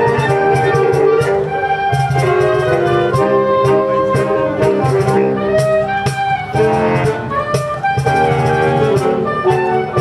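Saxophone ensemble playing a Latin-style piece: several saxophone parts in harmony over a steady percussion beat.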